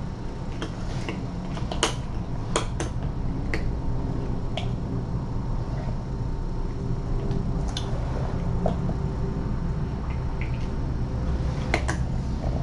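Cat crunching dry kibble eaten from a hand: sharp, irregular crunches a second or more apart, several close together in the first few seconds and another near the end, over a steady low hum.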